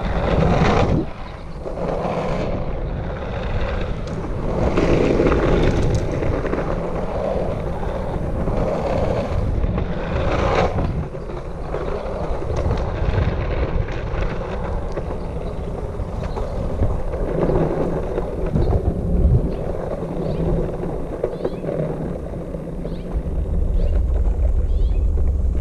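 Longboard's 66 mm Powell-Peralta Snakes urethane wheels rolling fast over rough, aggregate-studded concrete and old slurry-sealed asphalt, a steady coarse rumble. Wind buffets the microphone.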